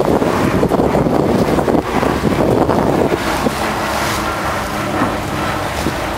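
Wind buffeting the microphone over the rush of water along a sailing yacht's hull in a fresh breeze. The heavy wind noise eases about three seconds in.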